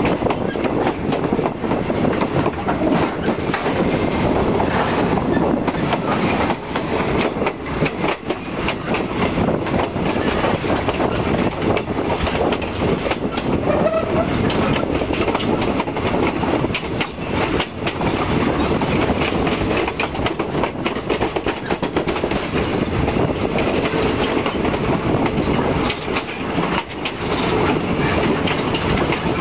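Passenger train running along the track, heard from beside a carriage: a steady rumble with the wheels clattering rapidly over the rail joints.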